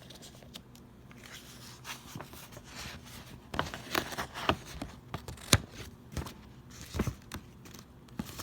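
Rustling and sharp clicks of a picture book's paper pages being handled and turned. They come thicker and louder from about halfway in.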